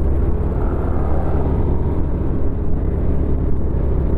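Motorcycle engine running at a steady cruising speed, a constant low drone mixed with road and wind noise, as heard from on the moving bike.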